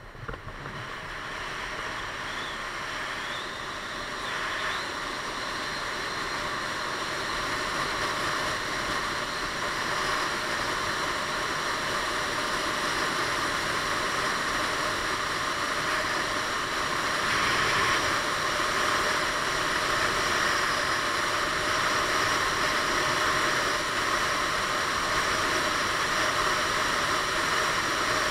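Wind rushing past a helmet-mounted camera on a Piaggio Beverly 500 scooter riding at road speed, a steady noise that grows louder over the first ten seconds or so as the scooter picks up speed and then holds.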